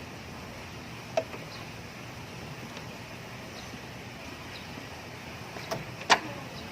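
Three sharp clinks over a steady low hiss: one about a second in, then two close together near the end, the last being the loudest.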